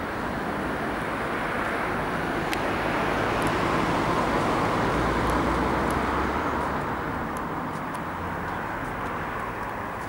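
Jet engine noise from an Airbus A340-200's four engines, a steady roar that swells to a peak about halfway through and then fades.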